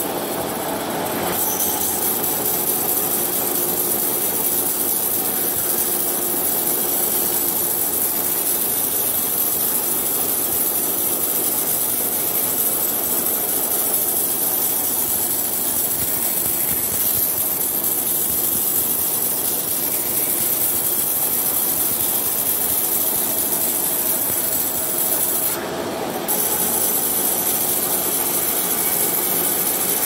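Truck-mounted band sawmill running steadily, its band saw blade cutting lengthwise through a coconut log with a loud, continuous hiss. The hiss drops briefly about a second in and again near the end.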